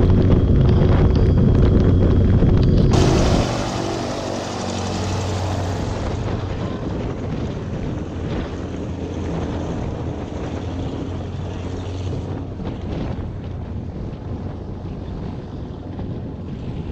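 Suzuki 15 hp four-stroke outboard running at speed on a small skiff, with wind and water rushing past. About three seconds in the sound drops sharply and the motor carries on more quietly.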